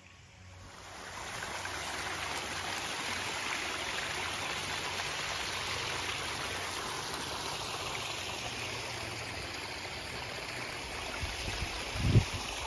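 Small garden waterfall splashing over rocks: a steady rush of running water that swells in over the first second or so. A brief low thump near the end.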